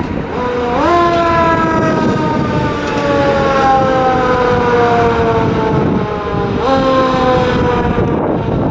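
The siren of a 1995 KME fire engine winds up twice. Each time the pitch climbs quickly, about a second in and again near the end, then slides slowly down. The truck's engine runs under it as it pulls out.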